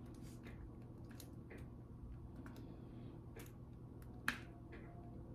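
Faint, irregular light clicks of diamond painting: a drill pen setting small resin drills onto the sticky canvas, with one sharper click about four seconds in.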